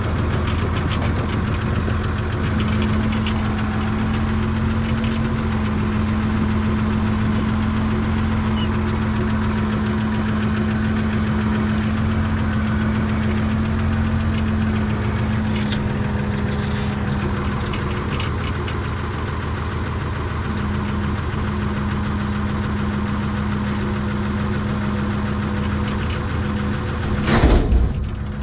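Renault tractor's diesel engine running steadily, heard from inside the cab. Near the end there is a single loud clunk.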